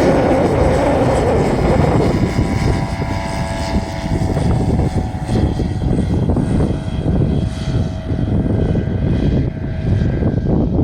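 Single-engine light propeller aircraft running loud and close, its engine and propeller giving a steady droning note. Loudest in the first two seconds, then holding steady.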